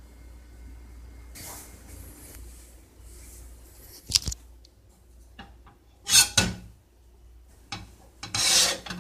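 Kitchen cookware being handled: a sharp metal clank about four seconds in, then two short bursts of scraping noise, one in the middle and one near the end.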